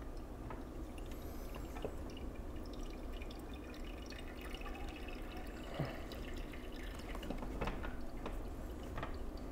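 Brewed coffee dripping faintly from an AeroPress into a mug as the plunger is pressed down slowly and firmly, with a few small ticks from the brewer.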